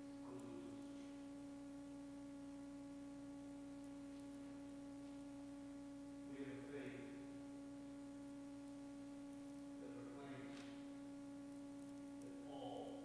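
A steady low hum with fainter higher overtones, and a man's voice speaking faintly a few times.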